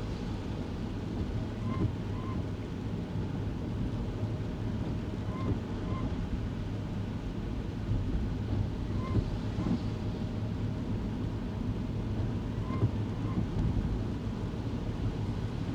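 Kei car cabin noise while driving on wet roads: a steady low engine and tyre rumble with road hiss. Faint short chirps come in pairs, about half a second apart, repeating roughly every three and a half seconds.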